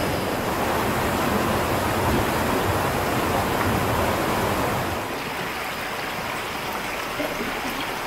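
Forest stream water rushing over rocks in a steady wash of noise. About five seconds in, the sound drops to a quieter, thinner flow with less rumble.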